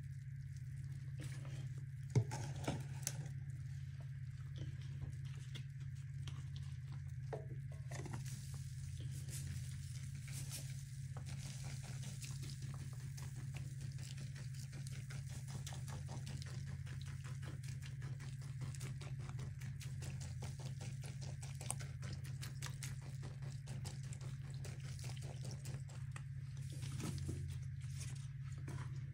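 Fine, dense crackling and patter from a sink of foamy disinfectant as scouring powder is shaken onto the soaking sponges, with a few sharper clicks about two seconds in. A steady low hum runs underneath.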